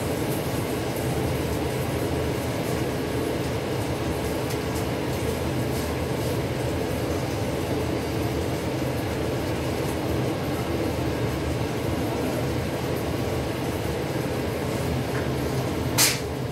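Steady hum and whir of commercial kitchen machinery, an unchanging mechanical drone with a low hum under it. A sharp clatter cuts in near the end.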